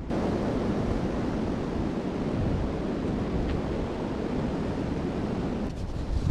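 Steady rushing wind noise, a broad even roar with no separate events. It starts abruptly and shifts near the end.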